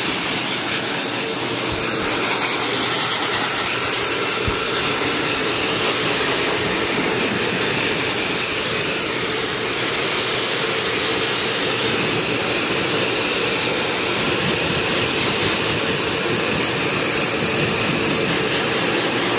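Dog dryer (forced-air blower) running steadily, blowing air over a horse's coat: a loud, even rush of air with a faint steady whine.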